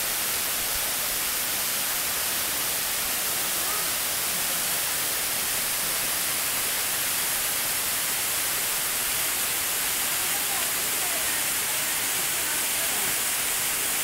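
Steady, even rush of a waterfall, a hiss that holds at one level throughout.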